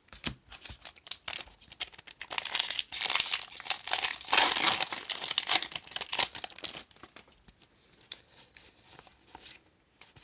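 Foil booster-pack wrapper crinkling as it is torn open, loudest from about two to five seconds in, then lighter scattered clicks of cards being handled.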